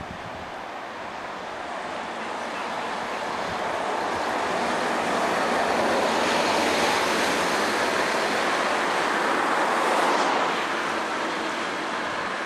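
Road traffic noise as a double-decker bus passes close by: a steady rush of engine and tyre noise that builds over the first half, stays loud, then eases off near the end.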